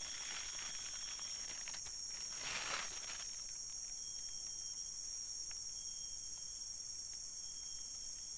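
Steady high-pitched chorus of insects in the riverside vegetation, with a brief swishing rustle about two and a half seconds in.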